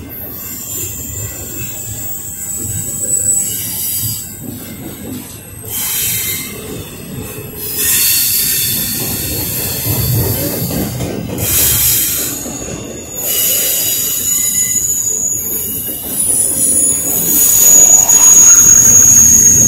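Double-stack intermodal freight train rolling past: steady rumble and clatter of wheels on rail, with a thin high squeal from the wheels that comes and goes and is loudest near the end.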